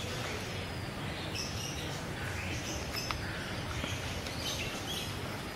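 Steady outdoor background noise with scattered short bird chirps, and a single sharp click about three seconds in.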